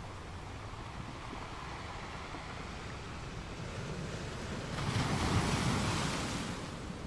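Ocean surf washing on a shore, a steady wash of waves. One wave swells and breaks, loudest about five seconds in, then draws back.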